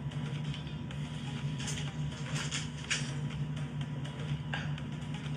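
Soda being drunk from a plastic 2-liter bottle: a few short clicks and crackles over a steady low hum.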